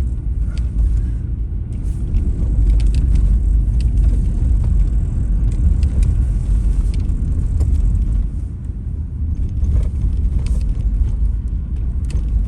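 Toyota 4Runner driving on snowy streets: a steady low rumble of engine and road noise.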